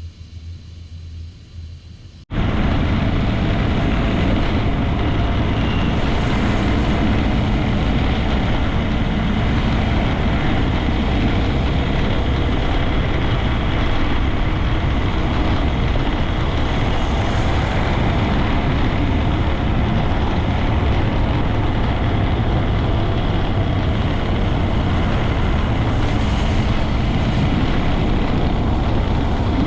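Honda Grom 125's single-cylinder engine running under way, with steady noise of the bike moving along. It cuts in abruptly about two seconds in, after a quieter low hum.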